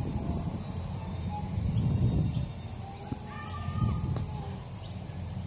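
Outdoor ambience: a steady low rumble of wind on the microphone, a thin steady high drone, and faint short bird chirps every second or so, with a brief pitched call about three seconds in.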